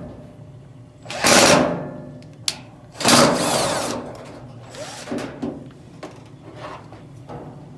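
Power drill/driver backing out a sheet-metal screw from a clothes dryer's front panel, running in two short spurts of about a second each, with scattered clicks of the bit and metal panel between them.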